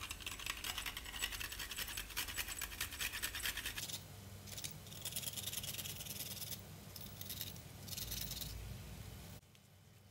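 Whole nutmeg grated on a flat stainless-steel hand grater: quick rasping strokes in a long run, then several shorter runs, stopping about nine seconds in.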